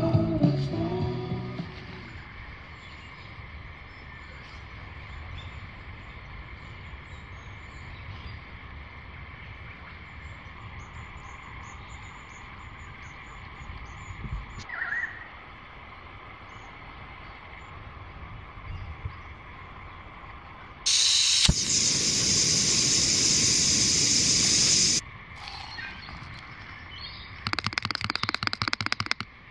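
Music ends in the first second or two, leaving quiet bush ambience with faint scattered bird chirps. About two-thirds through, a loud steady hiss lasts about four seconds and cuts off suddenly. Near the end, a spoon stirs rapidly in a metal camping mug.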